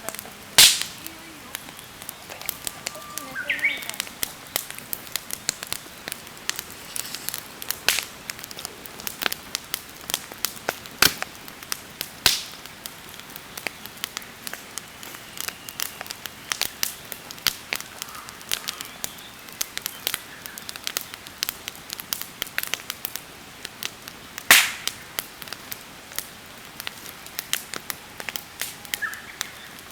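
Wood campfire crackling: a dense run of small sharp ticks with a few much louder pops, about half a second in, about twelve seconds in and about twenty-four seconds in.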